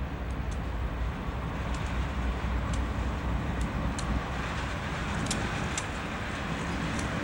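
Two BC Rail GE Dash 8 diesel-electric locomotives running past at close range, their engine drone growing louder as they come by, with scattered light clicks from the wheels and rails.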